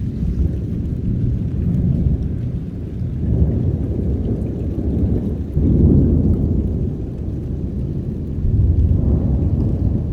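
Thunder rumbling in rolling waves during a heavy rainstorm, with steady rain underneath; a louder peal comes in suddenly about five and a half seconds in.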